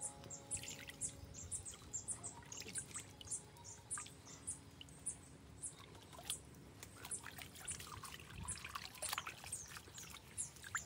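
Water splashing and dripping as raw pig intestines are lifted, squeezed and rinsed by hand in a basin of water, with small birds chirping over and over in the background.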